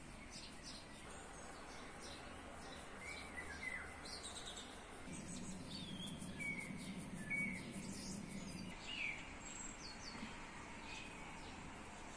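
Small birds chirping in short, scattered calls over a steady background hiss, with a low drone for about four seconds in the middle.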